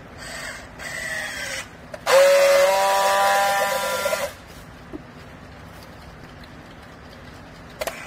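Battery-powered handheld strapping tool working a plastic strap around a bale. A short motor run comes first, its pitch falling as the strap is drawn tight. Then comes a louder, steady buzz of about two seconds as the tool friction-welds the strap.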